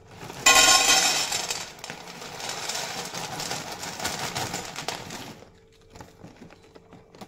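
Dry penne pasta poured from a packet into a stainless-steel plate, the hard pieces clattering and rattling on the metal. It starts suddenly about half a second in, is loudest at first, and thins out after about five seconds.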